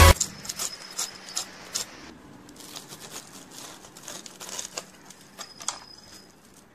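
Pizza cutter wheel rolling through the crisp breadcrumb crust of a fried chicken cutlet, crunching and clicking against a ceramic plate in a series of irregular crackles.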